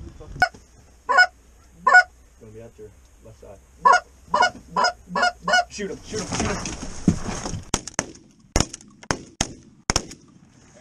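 Geese honking and clucking in a quick run of short calls. Then a rush of noise and several sharp shotgun shots near the end.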